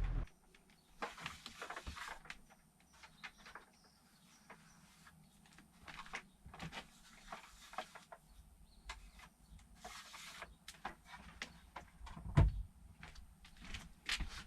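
Irregular light clicks and knocks, with one louder thump about twelve seconds in.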